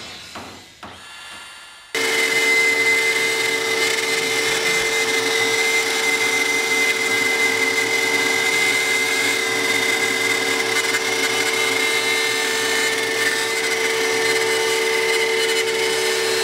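Router spindle on an X-Carve CNC machine running at speed and cutting wood, a steady loud whine over a rushing noise. It comes in suddenly about two seconds in.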